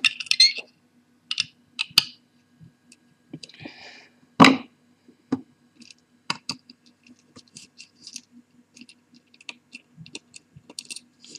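Small precision screwdriver clicking and scraping against the metal spindle hub and platter clamp of a laptop hard drive being taken apart. The ticks are scattered and irregular, with one sharper click about four and a half seconds in.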